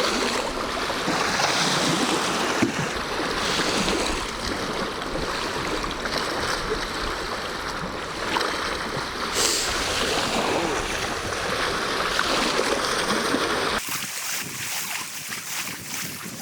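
High waves washing onto the shore in strong wind, a steady rushing noise. About 14 seconds in it cuts to a much quieter sound with faint ticks.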